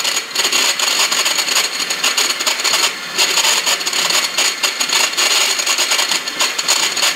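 KitchenAid electric hand mixer running with a single beater to whisk eggs in a small glass bowl: a steady high motor whine with a fast, rough clatter of the beater.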